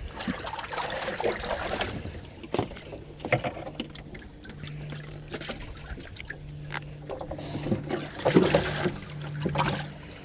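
Bass being handled in a boat's livewell: water splashing and dribbling with scattered knocks and clatters as fish are lifted and put back. A low steady hum comes and goes several times in the second half.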